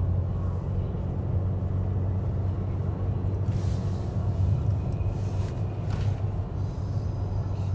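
Car driving on an open road, heard from inside the cabin: a steady low drone of engine and tyre noise, with two brief hisses in the middle.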